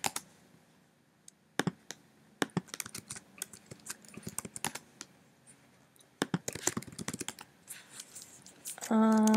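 Computer keyboard typing in short, scattered runs of keystrokes with single clicks between. Near the end a voice hums one steady note for under a second.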